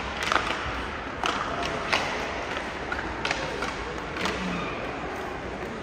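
About five sharp knocks at irregular intervals over a steady background hubbub.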